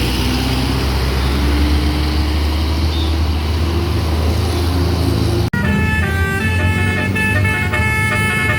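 A bus engine running with a low rumble. After an abrupt cut about two-thirds of the way in, a basuri telolet horn plays a tune of steady notes that change pitch in steps.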